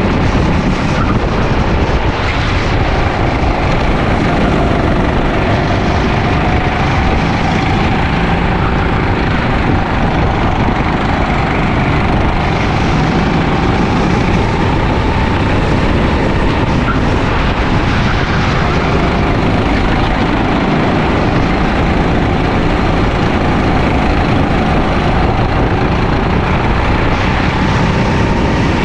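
Sodi LR5 rental kart's engine running hard during a race, heard onboard, its note rising and falling with the throttle over heavy wind and road noise.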